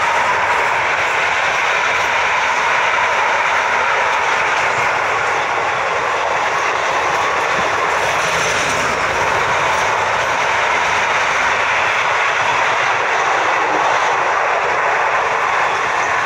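Freight wagons of an intermodal train rolling past at speed: a steady, loud running noise of steel wheels on the rails.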